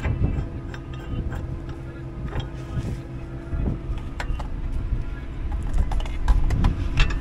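Isuzu truck's diesel engine idling steadily under short metallic clicks and knocks as a snatch strap is fitted to the rear recovery hitch. Wind buffets the microphone near the end.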